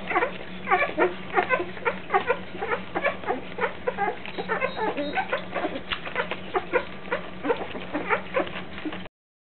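A litter of nine-day-old Labrador puppies squeaking and whimpering as they jostle to nurse: many short, high, rising squeaks, several a second, overlapping. The sound cuts off about nine seconds in.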